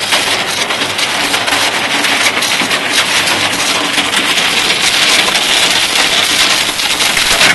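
Steel anchor chain running out over a boat's bow: a continuous dense rattle of links dragging across the deck plate and over the rail, with water splashing where the chain enters the sea.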